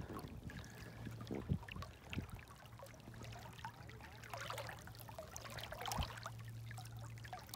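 Faint lapping and trickling of calm sea water, with scattered small splashes.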